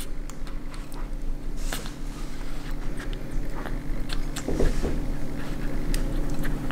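Two-and-a-half-week-old English bulldog puppy smacking and mouthing at its first weaning food, milk-thinned meat pâté, in small irregular wet clicks. A steady low hum runs underneath.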